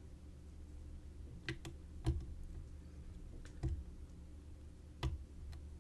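Faint, scattered metallic clicks of a thin hook pick and tension wrench working the pin stack of a DOM RS8 Euro cylinder lock: about seven small ticks at irregular intervals, the clearest about two seconds in and about five seconds in, as the pick feels for pins setting and counter-rotating at the back of the keyway.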